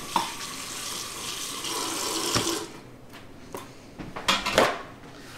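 Water running from a kitchen faucet into the sink for about two and a half seconds, then shut off. A few sharp knocks follow, the loudest near the end.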